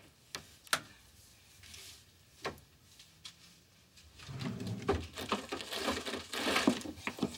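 A few isolated sharp clicks, then from about four seconds in a wooden desk drawer pulled open and rummaged through: paper rustling and small items knocking about inside.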